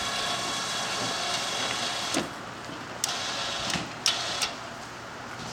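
Hoist winch of a small boat crane running with a steady motor hum, strongest for the first two seconds and then easing, while a slung skiff is lifted. A few sharp knocks and clanks come about two, three and four seconds in.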